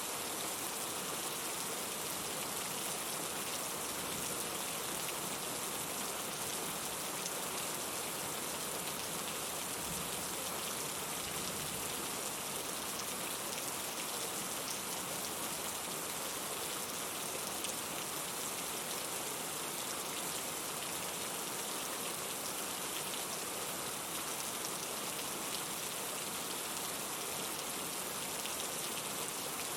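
Steady rain falling on a surface, an even patter of drops.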